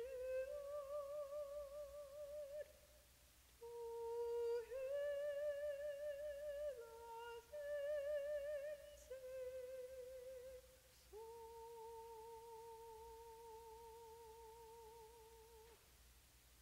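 A woman's solo voice sings a slow unaccompanied melody in long notes with vibrato, ending on a long steady held note that stops shortly before the end.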